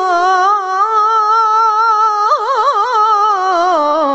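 A male qari's voice holding one long melodic note in murattal-style Quran recitation (tilawah), steady at first, then wavering in quick ornamental turns from about two seconds in, and breaking off near the end.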